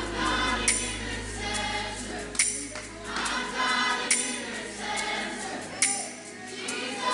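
A congregation singing a worship chorus together, with sharp percussive hits on the beat about once or twice a second. A low sustained instrumental drone underneath fades out about three seconds in, leaving mostly voices.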